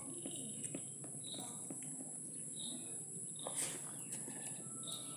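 Steady high-pitched insect trilling, typical of crickets, with a few short chirps and faint clicks over it.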